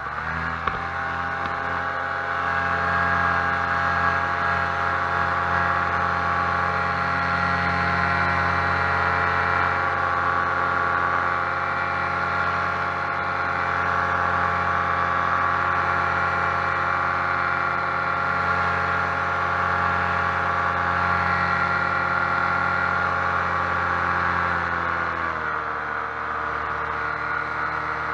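Paramotor engine and propeller running at full power through take-off and climb, a loud steady drone. About three seconds before the end the pitch drops as the throttle is eased back.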